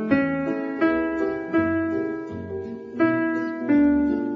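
Instrumental show-tune recording: piano playing a melody of ringing, sustained notes over a low bass line, with a fresh note or chord struck about every second.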